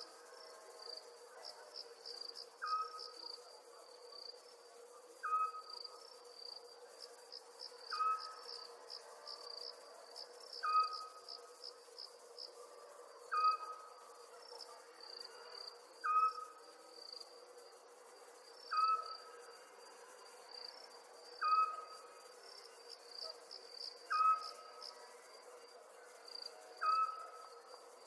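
Night ambience of crickets chirping in quick, uneven pulses, with a short, slightly falling call repeated about every two and a half seconds and a faint steady hum underneath.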